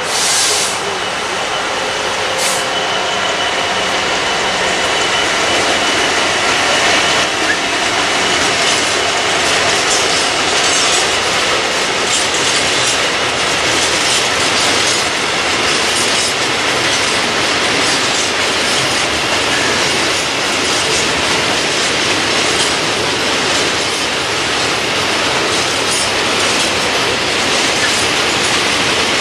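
Freight train of open coal wagons behind an EWS Class 66 diesel locomotive rolling past: a steady loud rumble and clatter of steel wheels over the rail joints, with a faint high squeal from the wheels in the first few seconds.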